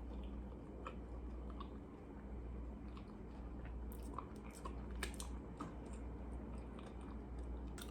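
A person chewing food close to the microphone, with small irregular mouth clicks.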